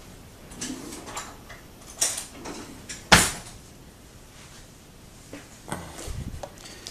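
Off-camera handling noises: light clatters and rustles, a clatter about two seconds in and a single sharp knock a little after three seconds. Near the end a small cardboard box is grabbed and shifted on a wooden table.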